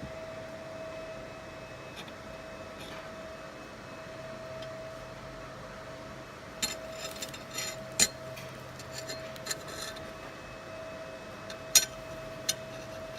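Fiber laser marking machine running during a deep engraving pass on brass, giving a steady mid-pitched tone. Scattered sharp ticks come in the second half, two of them louder.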